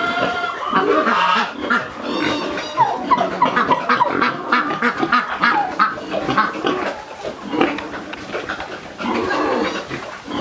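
Farmyard pigs and poultry calling over one another, many short overlapping calls without a break.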